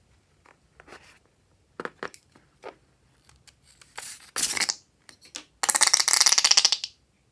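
Handling of slime-making materials: scattered small clicks and taps, a short noisy rustle about four seconds in, then a louder, rapid rasping burst lasting a little over a second near the end.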